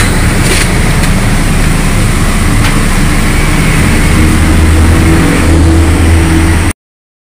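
Toyota Corolla Altis exhaust from the engine running, heard at the muffler, steady and growing a little louder about halfway through before cutting off suddenly near the end. The broken catalytic converter has been removed and replaced with straight pipe, and the exhaust still sounds smooth.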